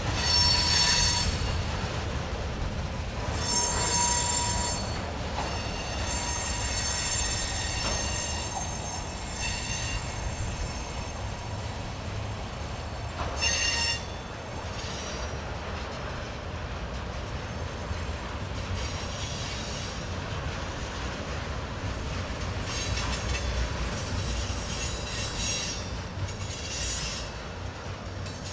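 Freight cars, tank cars and covered hoppers, rolling slowly past with a steady low rumble of wheels on rail. Their steel wheels squeal high-pitched again and again, in bouts from under a second to a few seconds long.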